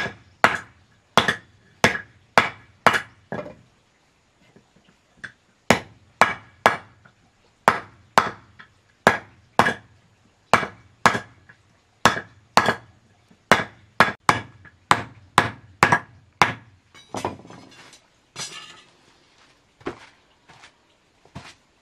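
Hammer striking a thin steel rod laid on a wooden plank, sharp ringing blows about two a second with a brief pause early on. Near the end the blows stop and a shovel scrapes into a pile of sandy mortar mix.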